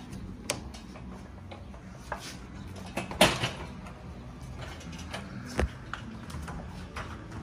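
A room-service trolley set with crockery and a metal coffee pot being wheeled in, with scattered knocks and clinks. The loudest is a short clatter about three seconds in.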